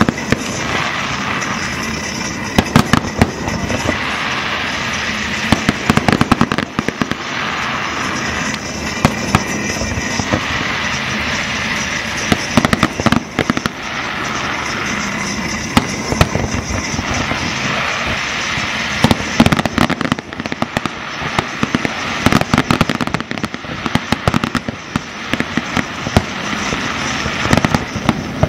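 Aerial fireworks display: shells bursting in rapid, irregular volleys of sharp bangs over a steady crackling hiss.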